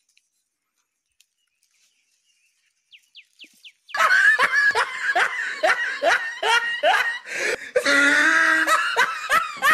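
Near silence, then a few short giggles, breaking about four seconds in into loud, unbroken hearty laughter with rapid repeated bursts.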